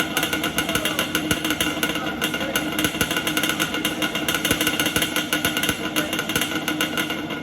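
Yamaha Banshee's two-stroke parallel-twin engine running steadily, a rapid rattling beat of firing pulses.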